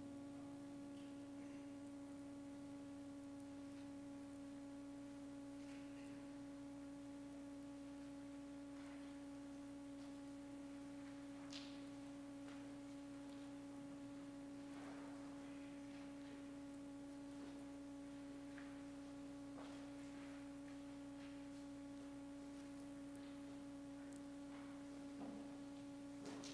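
Faint steady hum at one pitch with its overtones, unchanged throughout, with a few faint knocks and rustles.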